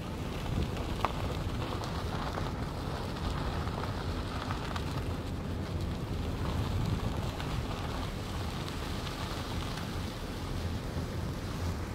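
Steady rumble and hiss of a vehicle driving on a gravel dirt road, its tyres running over the gravel.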